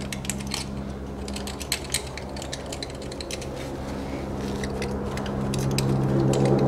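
Steel awl picking and scraping dirt out of the hex socket of a rear differential oil plug: rapid, irregular metallic clicks and scratches. A steady low hum runs underneath and grows louder near the end.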